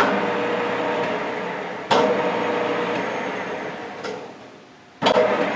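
Metal lathe spindle jogged with the inching control: each time the motor kicks on abruptly with a humming run, then winds down over about three seconds. Fresh starts come about two seconds in and again about five seconds in.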